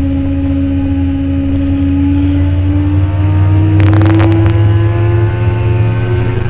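Stock 2008 Kawasaki ZX-10R's inline four-cylinder engine pulling hard under acceleration, its pitch rising slowly and steadily. A brief flurry of sharp clicks about four seconds in.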